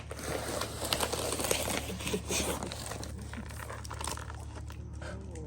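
Packaging being handled, crinkling and rustling in quick crackles, busiest in the first three seconds and then dying down.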